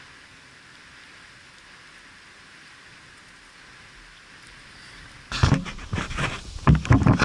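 Faint steady hiss, then about five seconds in, roughly two seconds of loud scraping, rustling and knocking right at the microphone as the camera is picked up and moved on the concrete pier.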